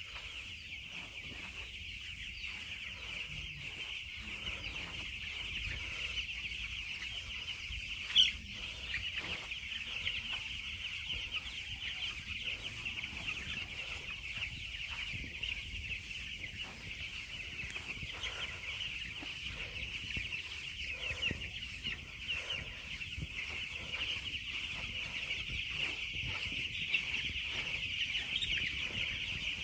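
A large flock of chickens clucking and peeping together in a steady, high-pitched chatter, with one sharp knock about eight seconds in.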